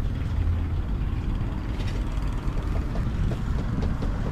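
Steady low rumble of wind buffeting the camera microphone outdoors.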